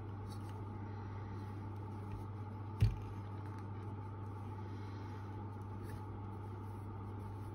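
A steady low hum with one short, sharp click about three seconds in and a few faint ticks, from fingers working small metal hardware onto a handmade lure.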